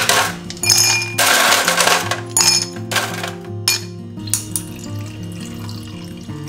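Ice cubes rattling out of a plastic tub and clinking into a drinking glass in several loud spells, some with a ringing glassy clink, over the first four seconds. Soft background music plays underneath.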